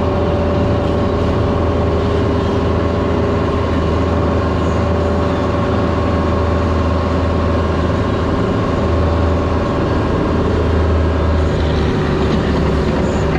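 Diesel engine of a piece of compact construction equipment running steadily at constant speed, a loud, even drone with a low hum and a few steady tones above it.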